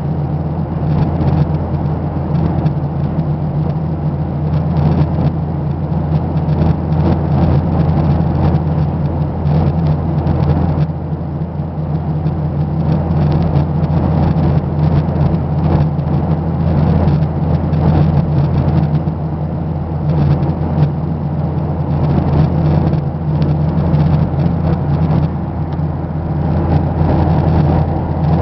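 Steady engine and cabin noise inside a moving vehicle, a continuous low rumble with a constant hum.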